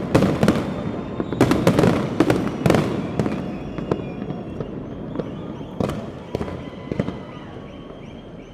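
Fireworks display going off: a fast run of sharp bangs and booms over a steady rumble in the first three seconds, then fewer, spaced bangs as the barrage thins out and fades.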